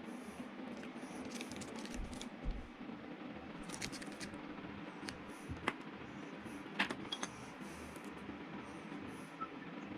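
Scattered light clicks and taps, the sharpest about six and seven seconds in, over a steady low background hum.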